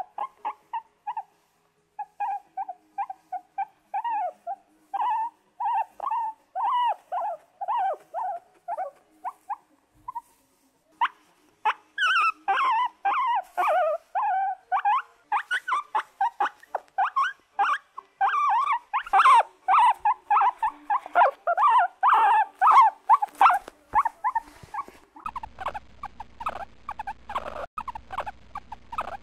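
Guinea pig whining: a long series of short, high-pitched squeaky calls, spaced out at first and coming thick and louder from about halfway. A low steady background noise joins near the end.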